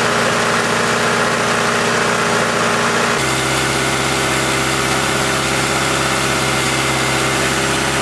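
Toyota 16-valve four-cylinder engine idling steadily at a raised speed, racing because of an open vacuum leak on the intake manifold, with a steady hiss over it. The engine tone shifts abruptly about three seconds in.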